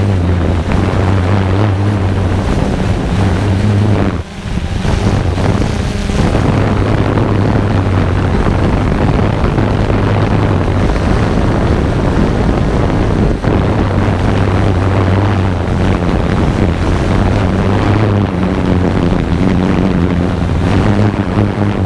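Camera drone's motors and propellers humming steadily, loud and close on the onboard microphone, with wind noise rushing over it. The sound briefly drops about four seconds in.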